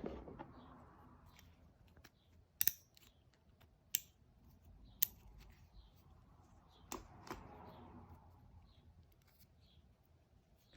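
A few sharp, separate clicks: a close pair about two and a half seconds in, then single ones about a second apart, over a soft rustling that swells at the start and again around seven seconds.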